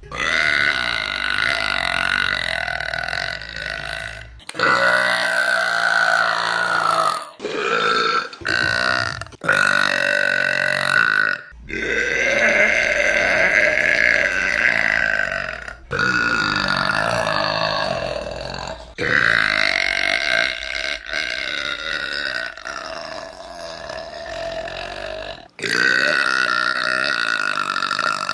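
A woman burping: about nine long, drawn-out, loud burps, one after another, each cut off sharply where the next begins, the longest lasting several seconds.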